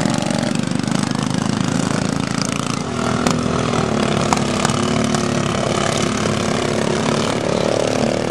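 Engines of several racing lawn tractors running as they lap the track, a steady drone whose pitch shifts about three seconds in. A couple of short sharp clicks come about three and four and a half seconds in.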